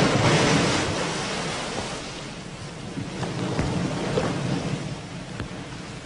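Waves breaking on a sandy shore: a wash of surf that fades over the first couple of seconds, then lies low with faint crackles as the water draws back.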